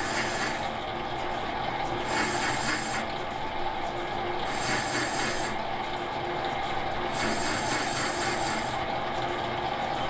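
Metal lathe running while a tool turns a finned model-engine cylinder: a steady motor and spindle hum, with a hissing cutting noise that swells and fades four times, about every two and a half seconds.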